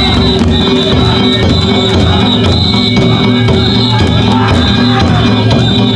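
Loud, continuous music driven by drums, with steady high ringing tones held above.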